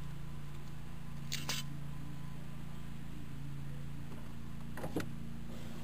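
A steady low hum throughout, with brief light clicks and rattles of a car window regulator's metal track being handled: a pair about a second and a half in and another near the end.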